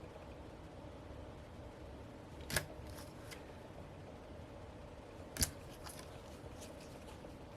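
Two short, sharp clicks about three seconds apart, from small cardboard and plastic merchandise pieces being handled and set down, over a faint steady room hum.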